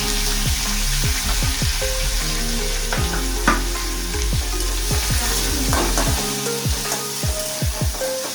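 Chopped onions sizzling as they fry in hot oil in the pan, with a single knock about three and a half seconds in.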